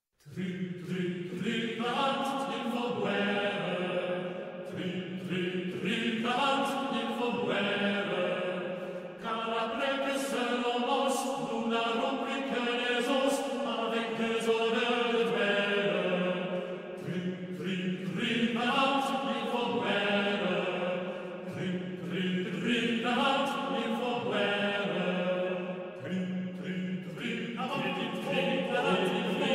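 A choir singing a slow, chant-like melody in long held phrases, starting suddenly out of silence at the very beginning.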